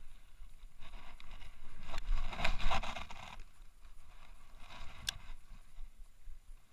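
Close handling noise from rod and reel: a rustling scrape about two to three seconds in, and a single sharp click about five seconds in.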